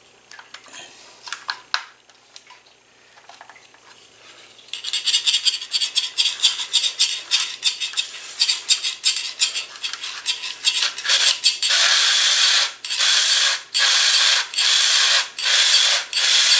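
Small electric motor and gears of a 1988 Tyco slot car running on the track. It starts about five seconds in with a rapid, uneven crackle, then from about twelve seconds runs in loud short bursts, on and off about once a second as the controller is pulsed. It sounds dry, like it needs a little oil.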